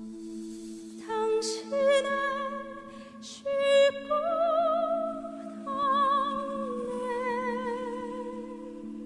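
Background music: a slow melody of long held notes with vibrato over a steady low drone.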